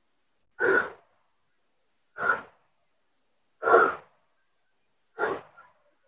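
A person breathing hard, out of breath from climbing a steep trail: four loud puffs of breath about a second and a half apart.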